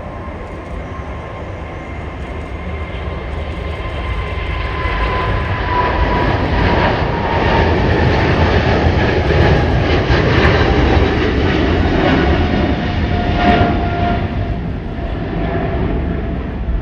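Boeing 747 freighter's four jet engines as the aircraft passes. The rumble grows louder to a peak around the middle and then eases, while an engine whine slowly falls in pitch as it goes by.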